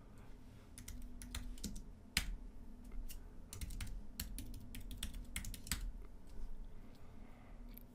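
Computer keyboard typing: irregular bursts of keystrokes with short pauses between them, as a terminal command and then a password are typed.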